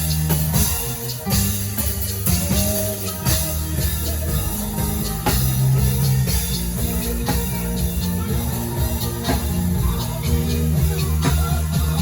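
Live worship band playing: sustained bass and keyboard chords over a drum kit keeping a steady beat.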